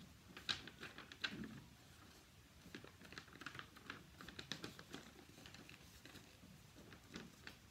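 Sheet of A4 paper handled and folded by hand: faint, irregular crinkles and taps as it is bent and creased.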